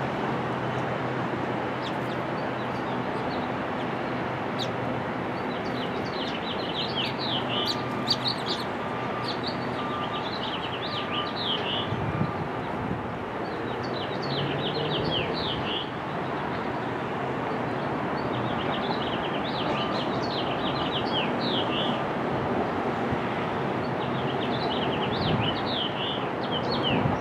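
Small birds chirping in repeated bursts of quick, high notes, about four bursts of a few seconds each, over a steady background rumble.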